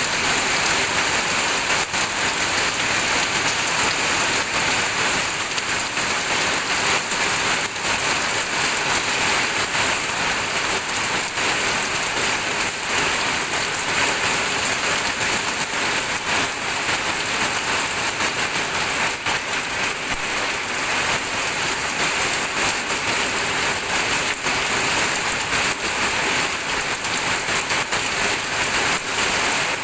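Steady rain falling on a surface, a dense even hiss of many fine drop ticks that holds at the same level throughout.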